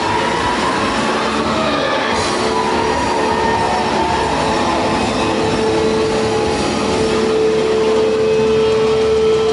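Loud, dense music with a long held note that comes in about two seconds in.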